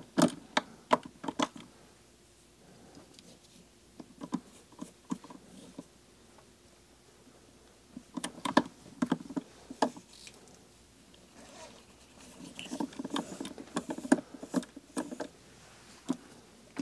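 Scissors snipping at a fly's wool head as it is trimmed, with rustling of the wool and tying tools: short sharp clicks in quick runs near the start, again about eight seconds in, and in a longer, busier run later.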